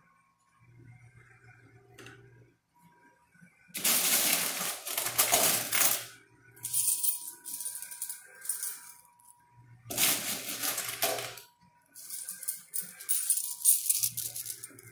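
Coin pusher machine with quarters spilling and clattering in four long, dense bursts, over a low motor hum that comes and goes several times.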